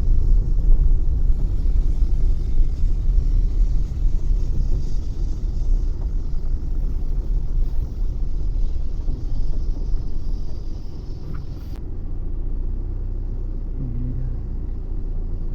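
Steady low rumble of a vehicle driving along a road. It eases a little in the second half.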